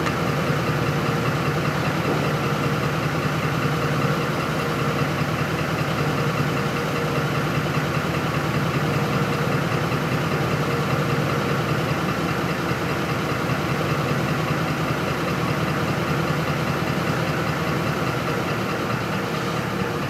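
Ford 5.4L V8 idling steadily, running on falling fuel rail pressure because a faulty fuel pump driver module is not feeding the fuel pump properly; the engine is close to stalling from fuel starvation.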